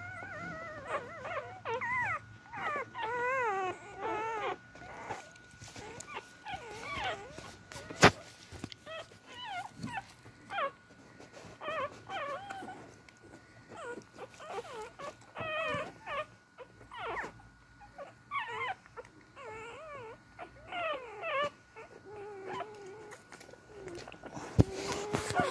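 Newborn beagle puppies whimpering and squeaking over and over while nursing, in short wavering high-pitched cries. A single sharp click about eight seconds in is the loudest moment.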